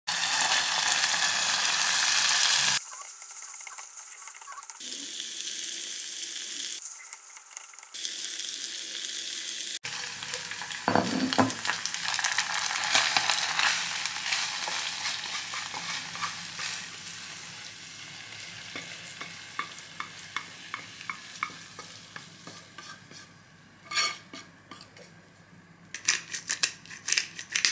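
Tomato sauce sizzling in a saucepan on a gas hob as a wooden spatula stirs it. Then the spatula scrapes and clicks against the pan as the sauced pasta is tipped onto a plate, and near the end a seasoning grinder gives a few short grinding clicks over the dish.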